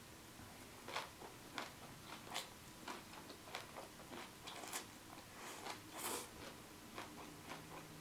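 Close-miked chewing of kimchi-wrapped noodles: soft, irregular crunches and wet mouth clicks, a few a second.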